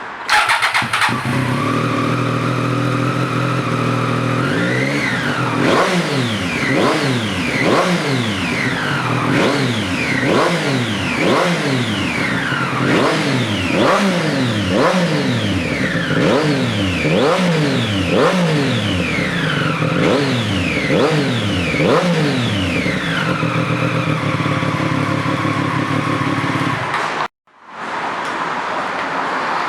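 Triumph Street Triple 765 inline three-cylinder engine through an SC-Project SC1-R exhaust, idling and then revved in about twenty quick throttle blips, roughly one a second, before settling back to idle. The sound cuts off suddenly near the end and the idle comes straight back.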